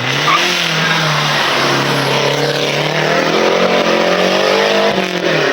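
Rally car engine at full effort, revs rising and falling as it changes gear, with a short lift off the throttle about five seconds in.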